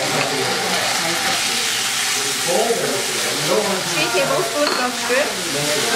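Raw shrimp sizzling steadily in hot oil in a frying pan as they are tipped in and stirred with a wooden spatula.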